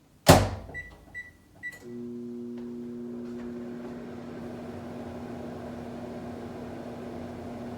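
A microwave oven door is shut with a sharp knock, followed by three keypad beeps. The oven then starts a 30-second heating cycle and runs with a steady hum.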